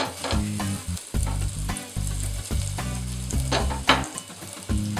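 Breaded potato patties (aloo tikki) sizzling as they shallow-fry in a thin layer of hot oil in a nonstick pan.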